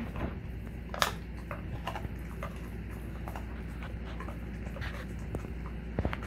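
Alaskan Malamute gnawing a raw beef rib: scattered clicks and crunches of teeth on bone, sharpest about a second in and twice near the end, over a steady low hum.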